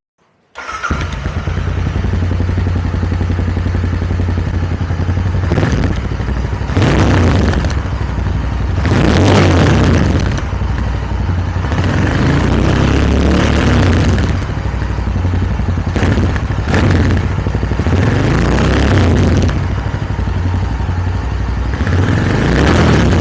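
Royal Enfield Continental GT 650's 648 cc parallel-twin engine running, revved up several times between idle.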